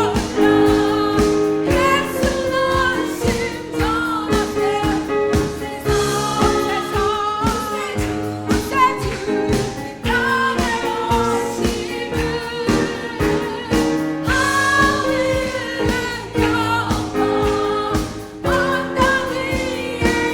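Small church vocal ensemble singing a Christmas carol in parts, with melody lines moving over steady held lower notes.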